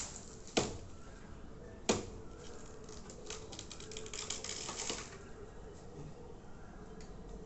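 Two sharp knocks about a second and a half apart, then a quick run of light clicks and taps lasting about two and a half seconds.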